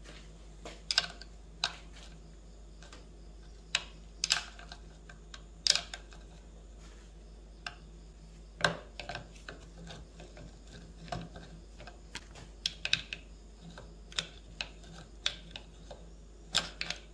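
Hand tools working on metal: irregular sharp clicks and taps, sometimes in quick clusters, about one a second, over a steady low hum.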